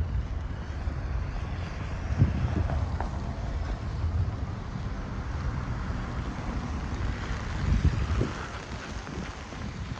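Blizzard wind buffeting the microphone: a steady, gusting low rumble with a hiss of blowing snow and wind above it. A few soft thumps come about two seconds in and again near eight seconds.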